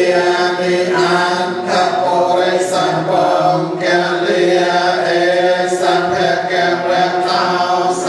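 Theravada Buddhist chanting by a group of voices in unison, a steady droning recitation on a held pitch without pauses.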